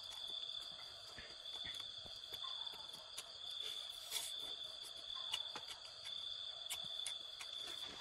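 Insects trilling in one steady high note, likely crickets, with scattered soft clicks and smacks of a person chewing roasted meat.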